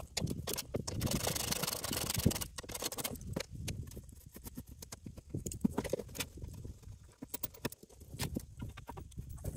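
Hand work under a UTV's frame: irregular small clicks and knocks of metal parts and hardware, with gravel crunching and scraping as the worker shifts on it. A longer rustling scrape comes in the first few seconds.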